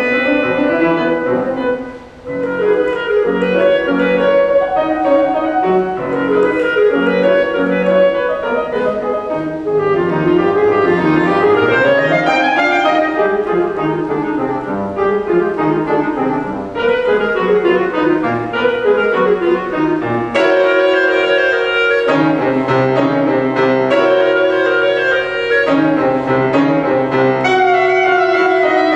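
Clarinet playing a classical melody with piano accompaniment, the music broken only by a short breath-like gap about two seconds in.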